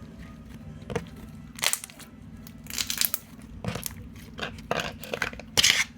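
Plastic packaging crinkling and crunching in a series of short irregular bursts as it is handled, the loudest near the end, over a steady low hum.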